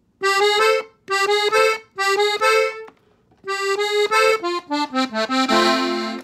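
Gabbanelli diatonic button accordion in F playing the closing part of a norteño ornament with a trill: three short phrases of quick notes, a brief pause, then a longer fast run that ends on a held chord.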